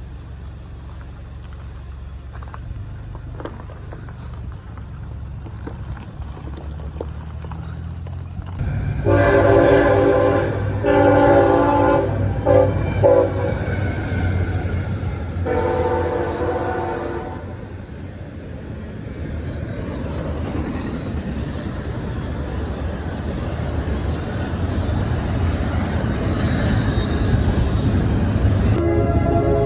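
Locomotive horn, a chord of several tones, blown in the grade-crossing pattern of long, long, short, long as a train approaches, over a rising rumble of the train. The rumble swells as the train passes, and another horn blast starts near the end.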